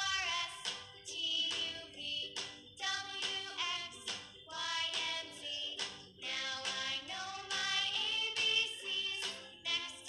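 Background song: music with a sung vocal melody.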